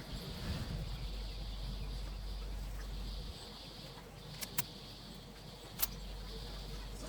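Steady low hum and hiss, with three sharp clicks: two in quick succession a little past the middle, and one more over a second later.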